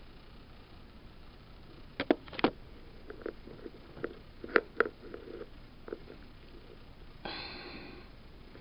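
Scattered light clicks and knocks, several in quick pairs, followed near the end by about a second of soft breathy noise.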